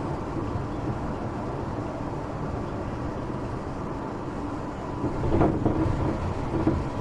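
Tokyo Metro 8000 series commuter train running, heard from inside the car: a steady rumble of wheels on rail with a faint hum. A louder knock, typical of wheels passing over a rail joint, comes about five and a half seconds in.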